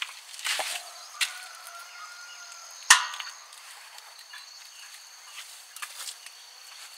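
Footsteps of a walker, a few steps in the first second or so, then a single sharp knock or crack about three seconds in, the loudest sound here. Crickets chirp steadily behind.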